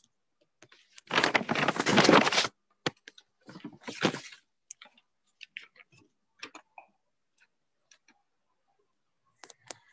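A dense rustling noise lasting about a second and a half, a shorter rustle a couple of seconds later, then scattered light clicks, picked up over a video call's microphone.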